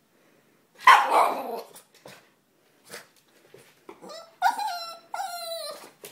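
Boston terrier barking to be given a toy: one loud bark about a second in, then two drawn-out, whining barks near the end, each sinking slightly in pitch.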